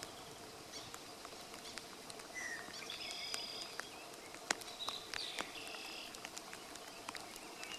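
Wild birds singing: short high, buzzy-trilled phrases repeated every couple of seconds, with a brief lower whistle, over steady outdoor background hiss. A single sharp click sounds about halfway through.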